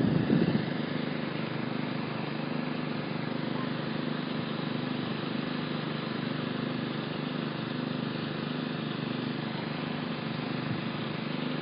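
An engine runs steadily in the open air, a low hum with a faint regular throb, under a general outdoor haze of noise. A brief louder sound, likely a voice, fades out about half a second in.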